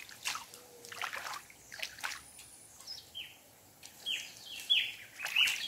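Water sloshing and splashing as a freshly caught fish is handled in the shallows at the river's edge. A bird calls a run of short, falling chirps, starting about halfway through and coming faster near the end.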